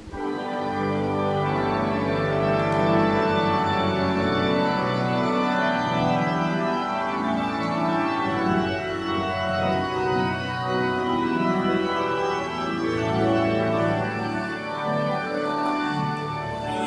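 Church organ playing sustained chords at an even level: the introduction to the entrance hymn as Mass begins.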